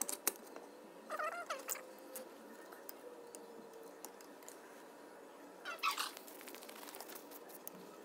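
Small metal clicks and taps from a screwdriver working on a Lucas 22D distributor's baseplate and springs. Two short, high, wavering calls from an unseen source stand out, one about a second in and one near six seconds.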